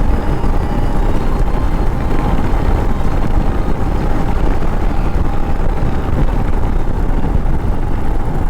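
Royal Enfield Himalayan's single-cylinder engine running steadily on the move, under heavy, even rumble on the microphone.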